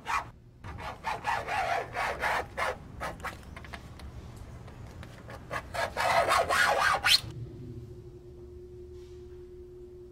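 A car key scraped across the paintwork of a white Audi A3's rear hatch, keying the car in a run of irregular strokes that stop about seven seconds in. A steady low tone then begins and holds.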